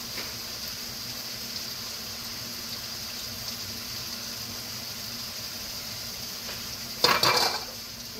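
Pan of tofu and vegetables sizzling steadily over a gas burner, with water just added to it. A short, louder burst of noise comes about seven seconds in.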